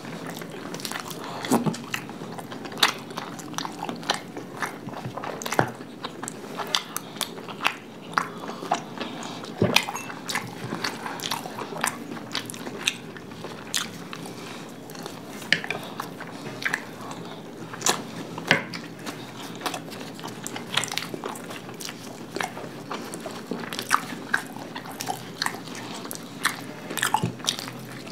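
Close-up eating sounds of two people eating cauliflower-stuffed parathas with curd: chewing, biting and lip-smacking, with many sharp, irregular clicks throughout.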